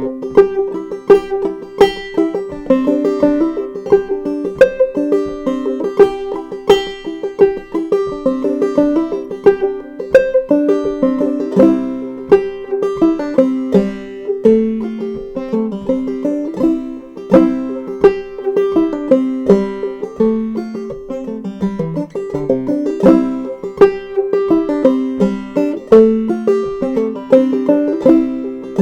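Solo clawhammer banjo playing a fiddle tune in C: a steady run of plucked melody notes, each beat marked by a sharp attack, over a ringing drone string.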